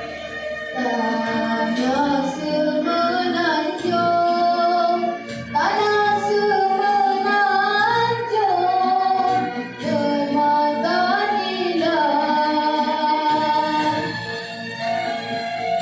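A boy's solo singing voice performing a patriotic song, with long held notes that step up and down in pitch, and two short breaks for breath.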